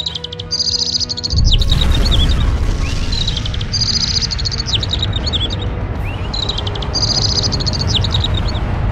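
Birds chirping in repeated short phrases over soft music. About a second and a half in, a loud, deep explosion rumble comes in suddenly and keeps going under the chirps.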